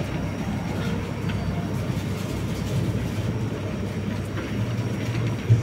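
Small plastic wheels of a wheeled shopping basket rolling over a tiled floor: a continuous, uneven rumble, with one short knock near the end.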